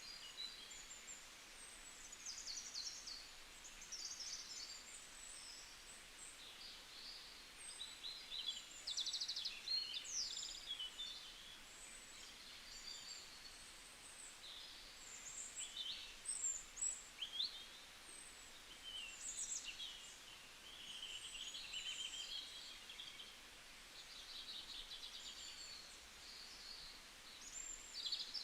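Several songbirds singing and calling at once, quiet high chirps, trills and short whistled phrases overlapping one another, over a faint steady hiss.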